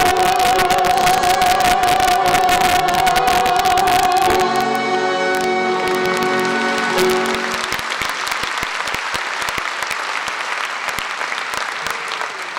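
A female singer holds a long final note over a live band, which closes the song with sustained chords about halfway through. The audience then applauds.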